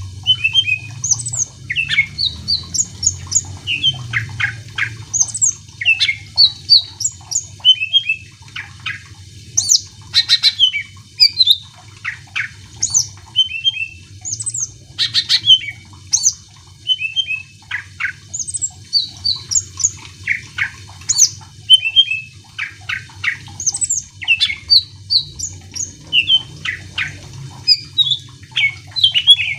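Cucak ijo (green leafbird) singing continuously in a full, varied song of quick chirps, whistles and sliding notes, about two a second, over a faint steady low hum.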